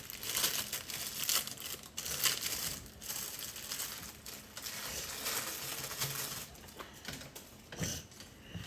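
Irregular crinkling and rustling of handled packaging, with small clicks, as the paint-kit parts are picked up and opened; a small knock near the end.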